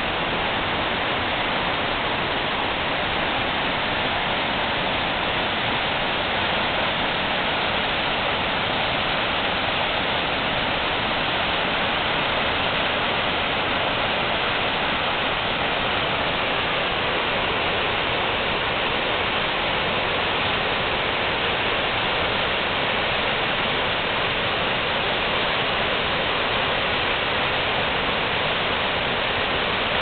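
Aysgarth Falls on the River Ure: white water pouring over the stepped limestone ledges in a steady, unbroken rush.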